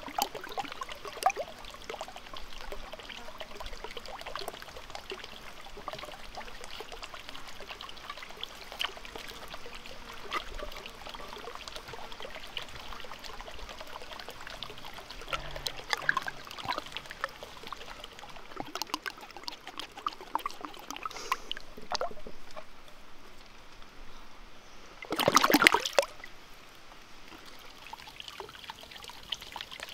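Water trickling from a small pipe into a shallow clay-lined pond, with scattered drips and small splashes. A brief louder burst of noise near the end.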